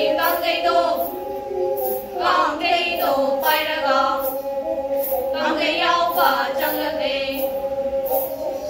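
Several women singing together in phrases over the sustained bowed tone of pena, the Meitei one-string fiddle with a coconut-shell body. The bells on the bows jingle about twice a second.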